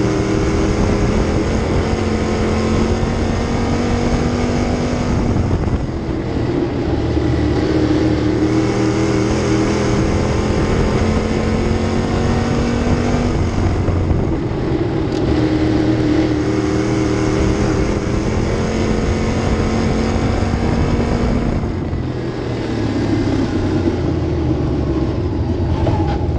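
A dirt-track Sportsman race car's V8 engine running at race speed, heard from inside the cockpit. The engine note climbs steadily down each straight, then drops as the car lifts off for the corners, three times about eight seconds apart.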